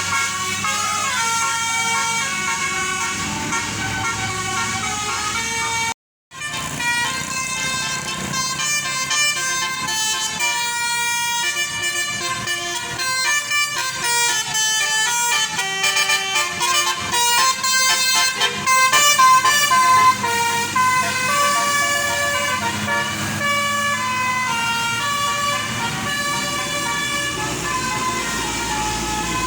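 Bus telolet basuri horn playing tunes of quick stepping notes, with a brief dead break about six seconds in before the melody resumes.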